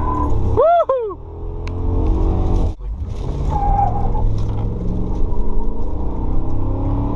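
Ram 1500's V8 engine running under way, a low rumble whose pitch slowly rises and falls. A brief squeal about a second in, and a sudden short break near three seconds before the engine sound resumes.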